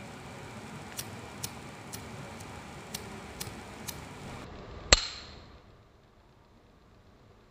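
Small metal clicks, about two a second, from a gold Christian Dior gas lighter's metal parts being handled, then one much louder, sharp metallic click with a brief ring about five seconds in.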